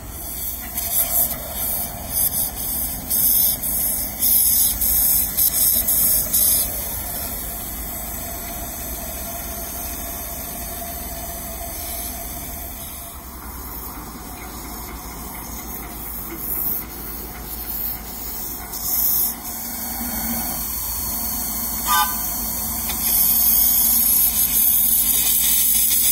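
Miniature live-steam railway running: irregular puffs of steam hiss over steady running noise from the small ride-on train. Near the end comes a steady, loud hiss as the small steam locomotive blows steam out low at its front, from its cylinder drain cocks.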